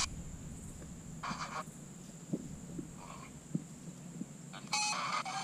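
A bird calling, three short harsh calls about a second and a half apart.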